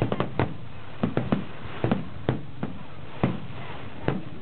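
Aerial fireworks shells bursting in an irregular string of sharp bangs, about a dozen in four seconds, some close together in pairs, over a steady background hiss.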